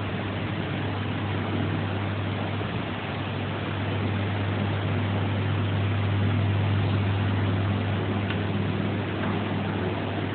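Steady machinery hum: a strong low drone under an even hiss, with a couple of faint ticks near the end.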